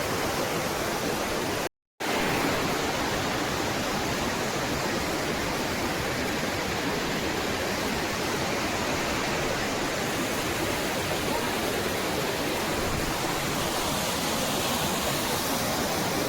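Waterfall's steady rushing roar of falling water, an even noise with no let-up. The sound cuts out completely for a moment just under two seconds in, then resumes unchanged.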